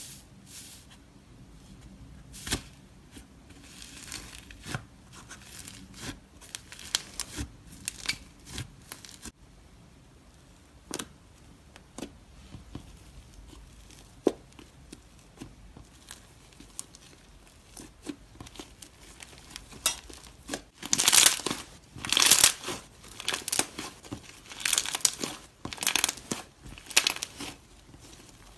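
Iceberg slime being poked, stretched and kneaded by hand: its dried crust crackles and crunches in scattered crisp snaps, becoming louder and denser over the last eight seconds or so.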